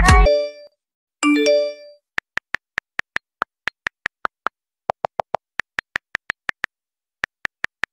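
Phone ringtone: short high electronic beeps, about five a second, repeating in runs with brief gaps.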